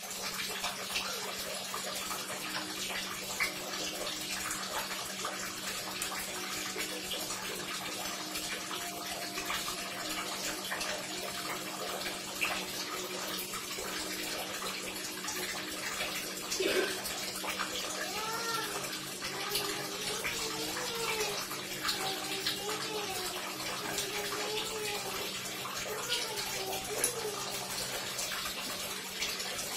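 Water running steadily, like a tap left on. From a little over halfway through, a faint voice rising and falling in pitch is heard over it.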